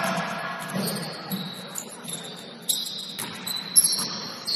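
Basketball game sounds: a ball bouncing on the court, with sneakers squeaking several times.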